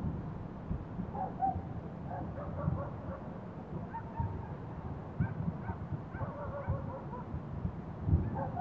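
Many short animal calls repeating in the distance over a low, uneven rumble. Sudden low thumps stand out a few times, the loudest just before the start and about eight seconds in.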